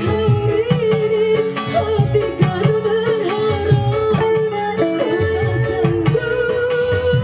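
Live dangdut band music: a plucked guitar melody over a steady, repeating drum rhythm.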